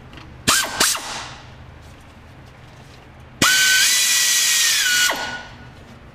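Power ratchet spinning out a starter-motor mounting bolt. Two short bursts come about half a second in, then a longer run of nearly two seconds from about three and a half seconds in. Its whine steps up in pitch, then drops as it winds down.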